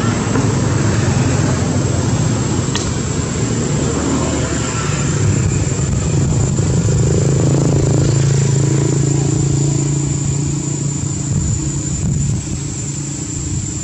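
A motor engine humming steadily, getting louder in the middle and easing off near the end, with a thin high-pitched whine over it.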